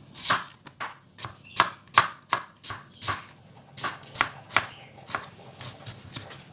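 Kitchen knife slicing a red onion into rings on a plastic cutting board: a quick, uneven series of crisp knocks as the blade goes through the onion and strikes the board, about two or three a second.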